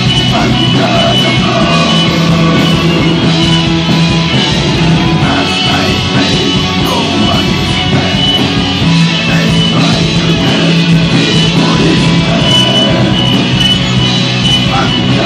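Metal band playing live at full volume: electric guitar, bass guitar and drums together, with long held low notes twice.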